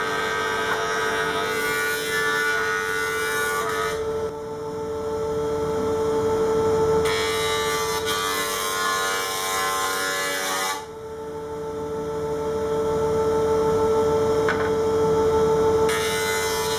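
Jointer-planer running with a steady whine while a wooden paddle blank is fed by hand across its cutterhead. The cutting noise changes every few seconds as one pass ends and the next begins.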